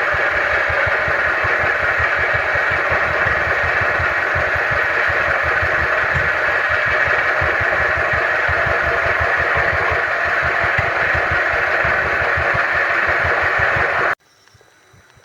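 A motor running steadily with a fast, even low pulsing, cutting off suddenly near the end.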